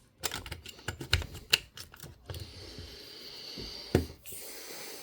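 Small parts of a Sony MZ-R3 MiniDisc recorder clicking and tapping as its case is handled and pressed back together: a quick run of light clicks, then a single sharper click about four seconds in.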